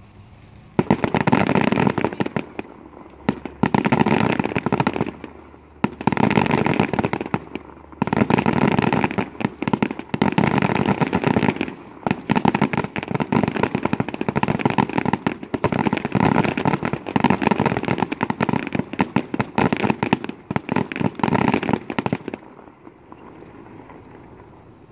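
Fireworks crackling: dense, rapid pops in one flurry after another, about a dozen flurries in all, stopping a few seconds before the end.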